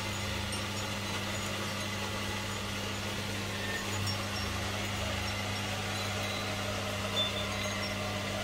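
A steady low mechanical hum over a faint even hiss, unchanging throughout.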